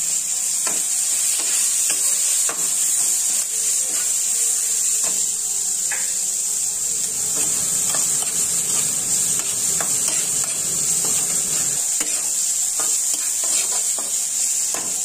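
Sliced onions sizzling in hot oil in a frying pan with a steady hiss, stirred with a spatula that taps and scrapes against the pan about once a second.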